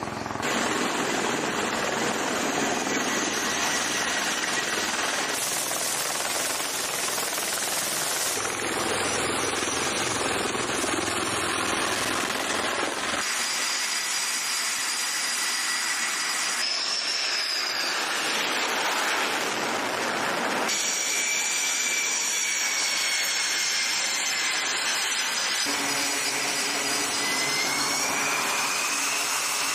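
Aircraft engines on an aircraft carrier's flight deck: a steady loud roar with high turbine whines, changing abruptly at several cuts. In the second half, F/A-18 Super Hornet-family jet engines run with high whines, one of which rises in pitch near the end.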